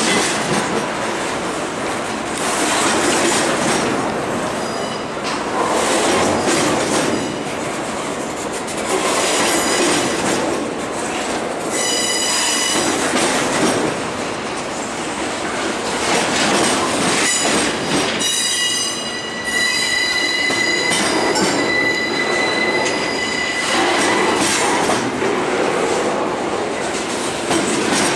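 CSX freight train rolling by, its steel wheels clattering rhythmically over the rail joints. High-pitched wheel squeal cuts in briefly about twelve seconds in, then again as a longer, steady squeal from about eighteen to twenty-four seconds.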